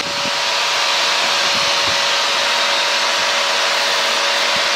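Steady cabin noise of an Aquila AT01 light aircraft in flight: its Rotax 912 engine, propeller and rushing air make a constant loud hiss with two faint steady tones running through it.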